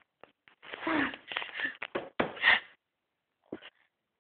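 A person's breathy, half-whispered voice in a cluster of short bursts through the middle, with a faint click just after the start and a brief breath near the end.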